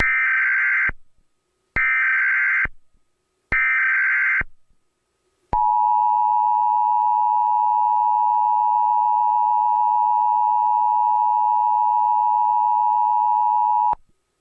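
Emergency Alert System SAME header: three short bursts of screeching digital data tones, each under a second long and sent about a second and a half apart. They are followed by the EAS two-tone attention signal, a steady harsh dual tone held for about eight seconds before cutting off abruptly.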